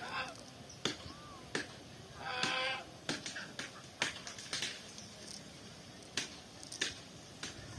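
Sharp, irregular clicks as a cast net is gathered and arranged by hand, its lead sinkers knocking together. A short honking call about two and a half seconds in.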